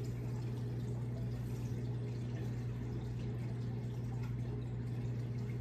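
A steady low hum with a faint, even hiss over it and no distinct knocks or clicks.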